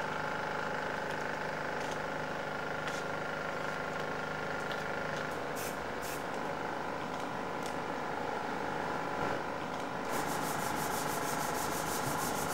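Steady machine hum with several tones. About ten seconds in, a power sander starts up with a fast, even rasping.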